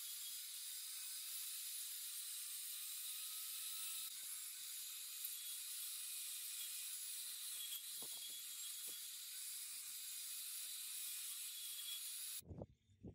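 Electric angle grinder with an abrasive disc sanding paint off a motorbike alloy wheel rim: a steady hissing grind with a faint motor whine. It cuts off suddenly near the end, and a few low knocks follow.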